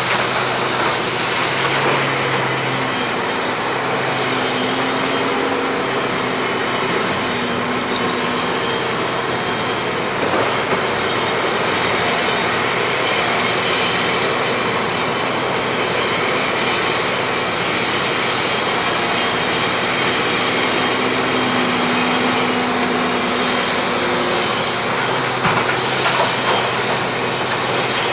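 Komatsu PC1250 excavator running: a steady diesel engine hum under a loud, even wash of machine noise, its pitch shifting slightly now and then.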